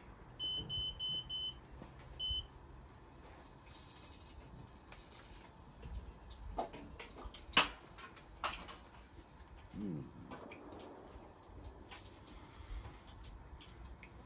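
Electronic beeper sounding four short, high, even beeps in quick succession, then one more a moment later. A few clicks and knocks follow partway through, with one sharp knock the loudest.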